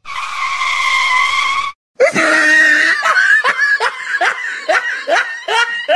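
A loud, high, held scream that breaks off, then after a short gap a run of short shrieking cries, each dropping in pitch, about two or three a second.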